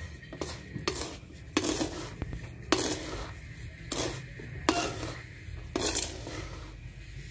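Spatula scraping and knocking against a black pan as it stirs dry-roasting rice grains, in uneven strokes roughly once a second, with the grains shifting between strokes. The rice is being roasted brown, partway to the dark roast wanted for rice coffee.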